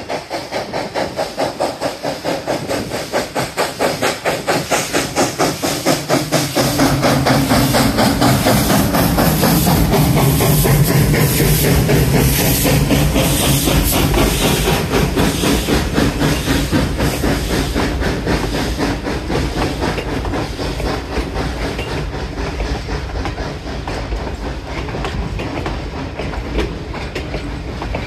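Arcade & Attica No. 18, a 2-8-0 steam locomotive, chuffing in a quick, even beat as it works its train past. About seven seconds in it gives way to a steady, loud rumble of the passenger coaches rolling by, their wheels clicking over the rail joints.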